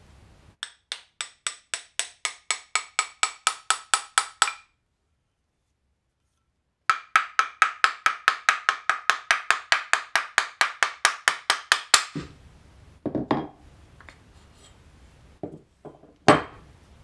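A small hammer tapping quickly and evenly on the end of a Japanese plane's wooden block to loosen and free the blade, about five or six light ringing strikes a second, in two long runs. Near the end come a few separate knocks as the freed blade and the block are set down on the bench.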